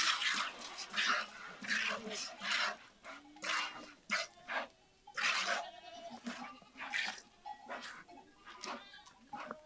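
Goat herd bleating, many short calls one after another.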